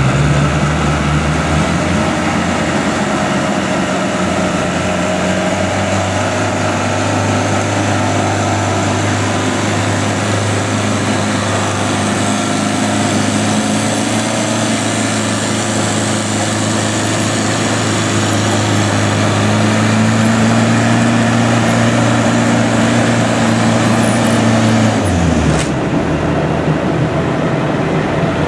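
Land Rover engines working hard in first gear low range, pulling against a tractor's drawbar load, with the wheels spinning in loose sand at the limit of traction. The engine note holds steady, then changes abruptly near the end.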